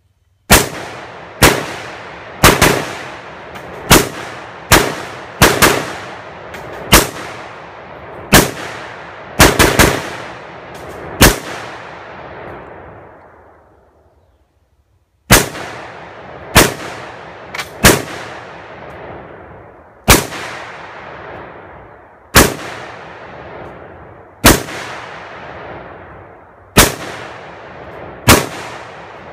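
Zastava M92 PAP short-barrelled AK in 7.62x39 fired semi-automatically, sharp single shots each followed by a rolling echo that decays over a second or two. A quick string of about a dozen shots comes first, then after a pause of about three seconds the shots come more slowly, one every second or two.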